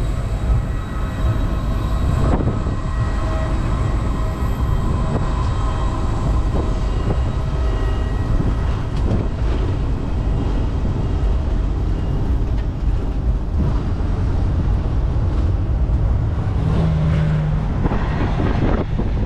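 Open-sided airport shuttle vehicle rolling along, a steady rumble of engine and tyres with wind on the microphone. A short low tone sounds near the end.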